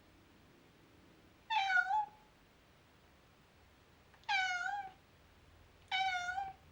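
Domestic cat meowing three times, each meow short, about half a second, with a slight drop in pitch at the end.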